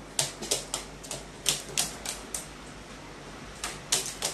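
A carrion crow's feet clicking and tapping on a sheet-metal surface as it steps about restlessly: a quick, irregular series of sharp taps in two bouts with a short pause between.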